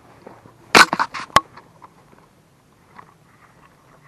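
Handling noise from a spinning rod and reel: a quick cluster of rustles and scrapes about a second in, ending in one sharp click, then faint scattered ticks.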